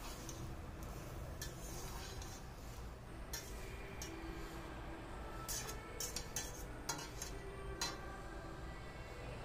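Plastic spatula scraping and knocking against a metal pot while stirring cooked taro stems, a few scattered clicks at first, then a quicker run of knocks in the second half.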